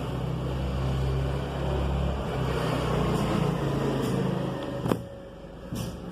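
A low, steady motor hum that stops about five seconds in with a sharp click, followed by a few faint short rustles.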